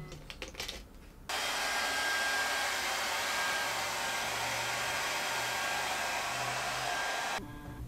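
Handheld hair dryer blowing steadily, with a faint low motor hum under the rush of air. It starts abruptly about a second in and cuts off abruptly shortly before the end.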